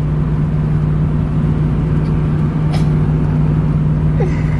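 2008 Dodge Ram 1500 pickup cruising at highway speed, heard from inside the cab: a steady low engine drone under constant road and tyre noise.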